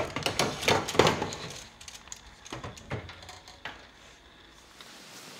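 Clicks and clatter of a metal baking tray being handled and put into a home oven, busiest in the first second, with a few separate knocks after and a last knock as the oven door is pushed shut.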